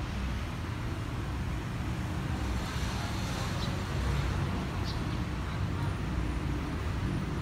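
Steady low engine rumble mixed with traffic noise, growing slightly louder.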